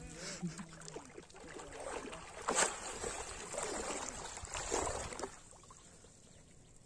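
Water splashing as a person lunges and throws himself down into shallow muddy water, in irregular splashes with the loudest about two and a half seconds and about five seconds in, then quieter.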